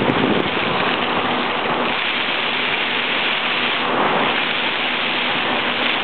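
Fountain water splashing and falling in a steady, dense rush.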